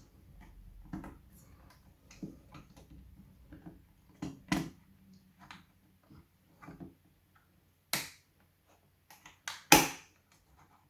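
Computer parts being handled and fitted during a PC build: scattered clicks, taps and knocks at irregular intervals, with two louder knocks near the end.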